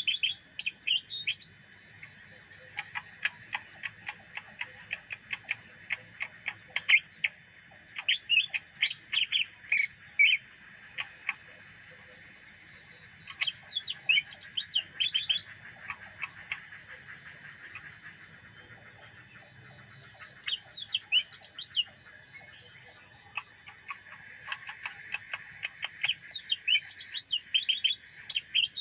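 Leafbird singing: a varied song of quick whistled chirps and trills in bursts, broken by pauses of a few seconds, over a steady high hiss.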